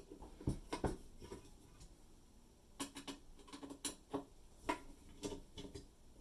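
Irregular light clicks and taps of a number 2 Phillips screwdriver turning and releasing quarter-turn fasteners.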